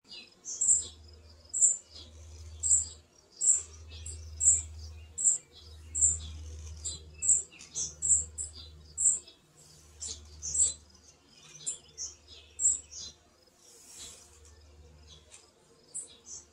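A bird chirping over and over, short high chirps about one or two a second, thinning out in the later part. A low rumble comes and goes underneath.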